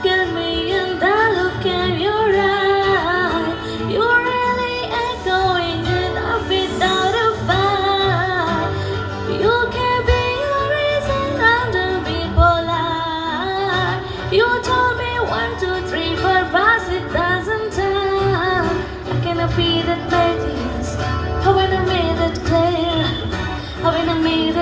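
A woman singing a melody over backing music, with no words the recogniser could make out.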